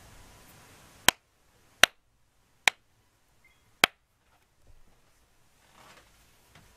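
Four sharp, loud clicks under a second apart, then faint soft crumbling of soaked mushy soap squeezed in wet hands.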